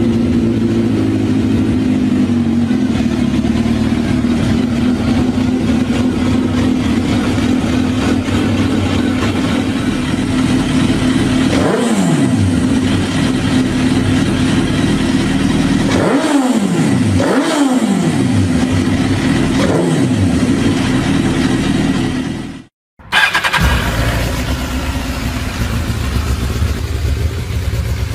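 Suzuki GSX-R sport bike's stock inline-four engine idling, with four quick throttle blips in which the revs rise and fall. The sound then cuts suddenly to a second GSX-R engine idling at a different pitch.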